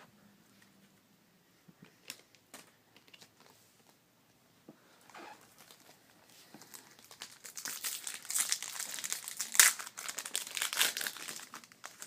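Foil trading-card pack wrapper being handled, then torn open and crinkled. It starts with a few faint scattered crackles, and the crinkling gets dense and loud from a little past halfway, with its sharpest crackle about two thirds of the way through.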